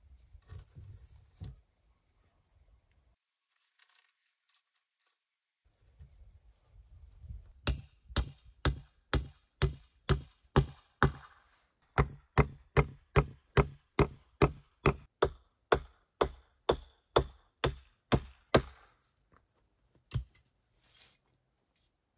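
An axe chopping into wood in a quick, even run of sharp strikes, about two or three a second, with a short pause partway through. Before the chopping starts there are only a few faint knocks and rustles.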